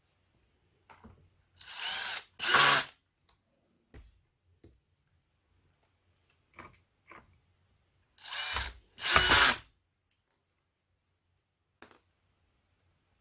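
A power screwdriver running in two pairs of short bursts on screws, a second or so each, with small clicks and knocks of handling in between.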